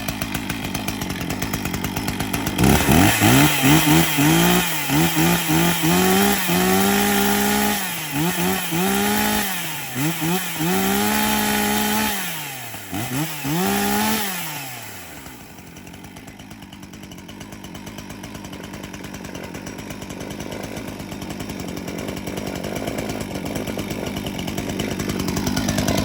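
60cc Stihl MS 361 two-stroke chainsaw running just after a cold start, revved in a string of quick throttle blips, the later ones held longer. It then drops back to a steady idle.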